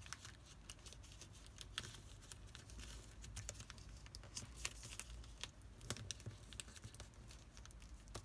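Origami paper being folded and creased by hand: faint, irregular crinkles and small clicks.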